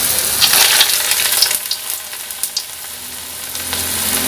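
Cassava fritters frying in hot oil in a wok: a steady sizzling hiss with crackling pops, loudest in the first second and a half, easing to a softer hiss in the middle and building again near the end.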